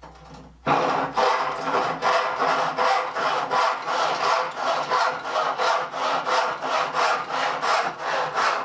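Fine-toothed 10-tooth handsaw sawing through a piece of scrap wood in quick, even back-and-forth strokes that start about a second in. The saw cuts right on through the wood.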